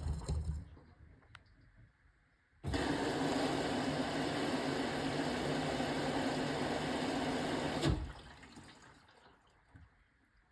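Beko BM3WT3741W washing machine taking in water: the inlet valve opens suddenly about two and a half seconds in, water rushes steadily into the machine for about five seconds, then the valve shuts off abruptly. Just before, the drum briefly turns with a low rumble.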